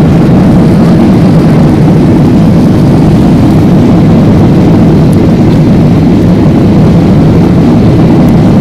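Jet engines of a GOL Boeing 737 at takeoff power during the takeoff roll, with the rumble of the runway, heard from inside the cabin: a loud, steady, low-pitched noise.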